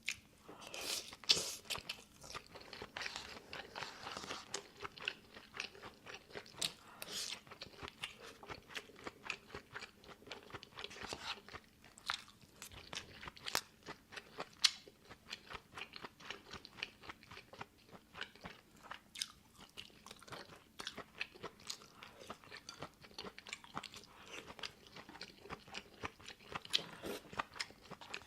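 A person chewing and biting food, with a steady run of irregular short crunches.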